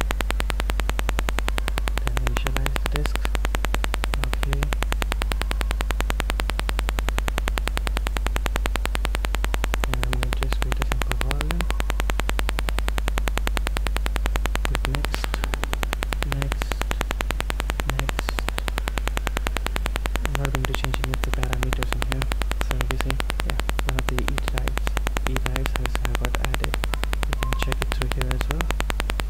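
Steady low electrical hum with a buzz over it from a faulty recording microphone, at an even level throughout, with faint irregular patches breaking through now and then.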